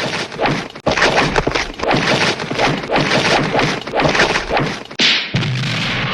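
Hanna-Barbera cartoon fight sound effect: a rapid, unbroken jumble of whacks, thuds and crashes for about five seconds, with a short break before a different noisy stretch near the end.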